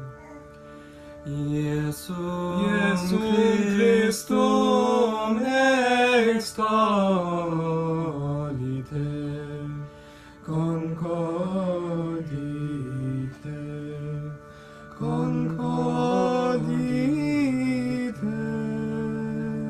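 Slow, chant-like devotional song: a voice sings long gliding phrases over steady held accompanying notes, with pauses between the phrases.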